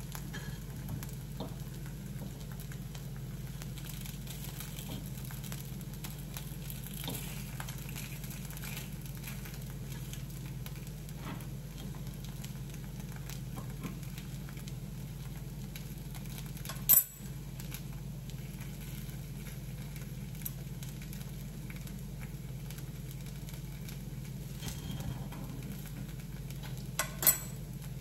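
Oats appam batter sizzling softly in an oiled appe pan while the dumplings are turned with a fork, with light scattered ticks of the fork against the pan, over a steady low hum. Two sharp clicks stand out, one a little past halfway and one near the end.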